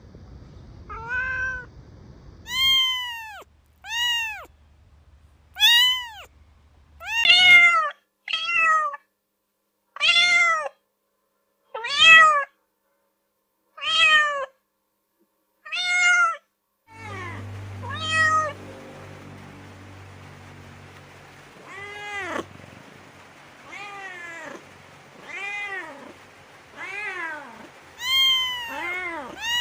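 A cat meowing over and over, about one meow every two seconds, each call rising and then falling in pitch. A low steady hum comes in about halfway through.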